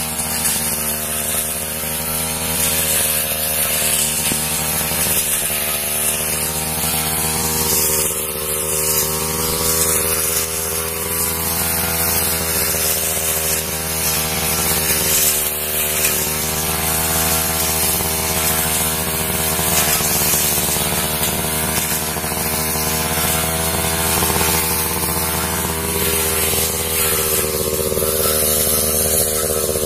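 Backpack brush cutter engine running steadily while its cutting head works through dense weeds, the engine note drifting slightly up and down.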